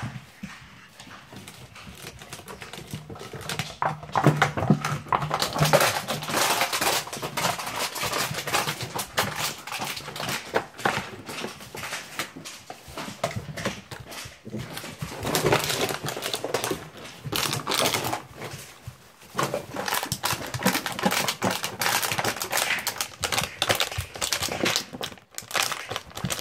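Giant Schnauzer puppies playing with a plastic bag and empty plastic bottles: crinkling and rattling plastic with scuffling, in busy spells with short lulls.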